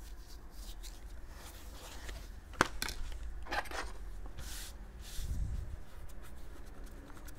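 Soft rustling and rubbing as a cloth mouse pad and its plastic packaging insert are handled and laid flat on a cutting mat, with one sharp click about two and a half seconds in and a low thud a few seconds later.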